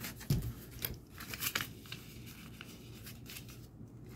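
Clear plastic pockets of a ring-binder savings planner and a paper banknote rustling and crinkling as a bill is tucked into a pocket, with scattered light clicks and a low thump near the start.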